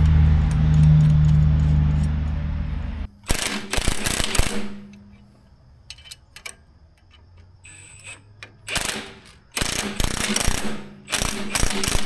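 An engine running steadily that cuts off abruptly about three seconds in, followed by four short bursts of metallic ratcheting and clanking from work on the Ditch Witch 1820 trencher.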